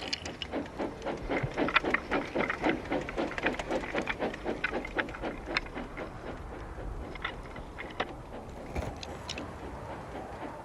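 Steam locomotive chuffing in a steady rhythm of about three puffs a second over a low rumble, the puffs spacing out and fading after about seven seconds as the engine slows, leaving a few light clicks.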